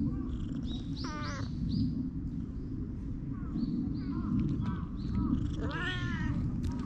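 Crow cawing twice, raspy calls about a second in and again near the end, over the chirping of small birds and a steady low rumble.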